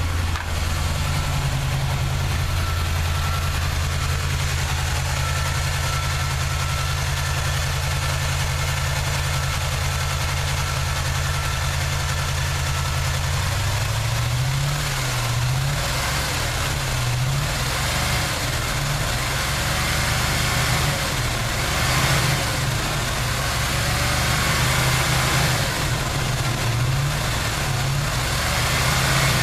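Chevy 350 small-block V8 of a 1979 Chevrolet truck idling steadily, then about halfway through its speed rising and falling again and again. The engine has a nagging misfire that the owner has not yet traced.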